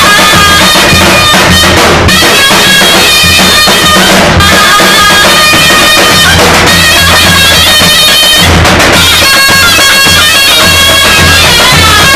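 Davul and zurna playing loudly: the shrill double-reed zurna carries the melody over the steady beat of the davul bass drum.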